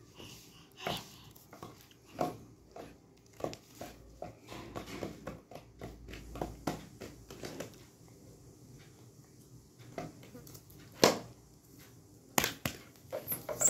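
Irregular small taps, clicks and crinkles of a baby handling a thin plastic stick and a plastic toy on a woven floor mat, with two much louder knocks near the end.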